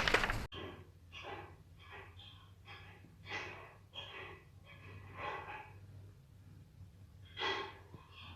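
Faint, scattered dog barks, a short one every half second to a second, over a steady low electrical hum.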